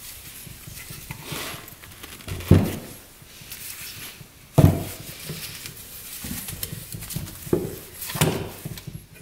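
Metal engine parts and hand tools handled on a workbench: rustling with a few sharp knocks and clinks, the two loudest about two and a half and four and a half seconds in.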